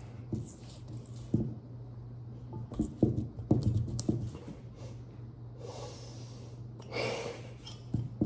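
Scattered light knocks and clicks of a utensil against a mixing bowl as cake batter is stirred, over a low steady hum. Two breathy puffs come in the second half.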